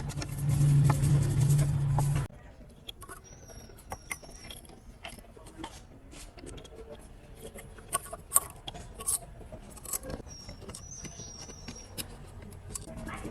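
An electric motor runs loudly for about two seconds and cuts off abruptly. Then come scattered light clicks and taps of parts being handled, with a few faint high squeaks.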